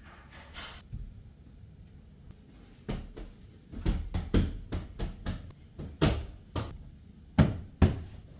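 Sofa cushions being patted and plumped by hand: a run of a dozen or so soft thuds over about five seconds, the last two the loudest, after a brief rustle near the start.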